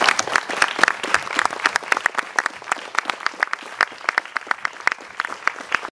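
Audience applauding, dense at first and thinning to scattered separate claps toward the end.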